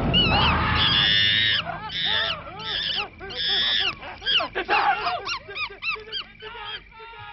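A chimpanzee screeching and hooting. Long shrill screams come first, then a quick run of short calls that rise and fall in pitch and fade toward the end.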